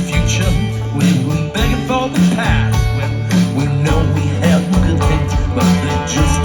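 Live band playing a rock song: guitars, bass and drums with a steady beat, and some singing.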